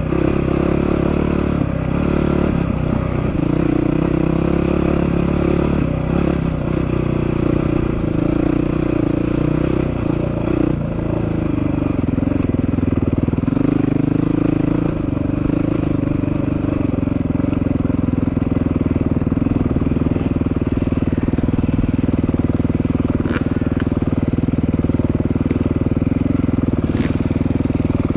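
Dirt bike engine running as the bike is ridden. Its note rises and falls over the first ten seconds or so, then settles to a lower, steady note as the bike rolls slowly along.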